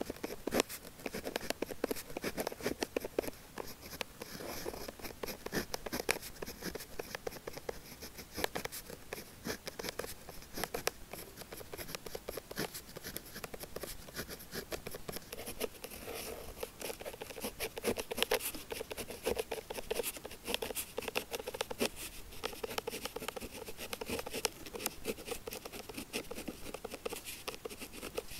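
Pen scratching across paper in continuous handwriting strokes, with many small ticks and scrapes.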